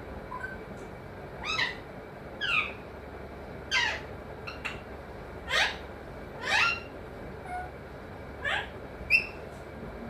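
Alexandrine parakeet giving a string of about eight short, harsh calls, roughly one a second, each falling in pitch.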